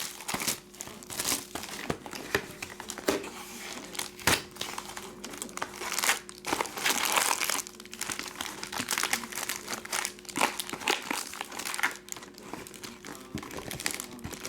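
Plastic wrapping crinkling and cardboard rustling as a box of trading cards is unwrapped and opened, with many irregular sharp crackles. A faint steady hum runs underneath.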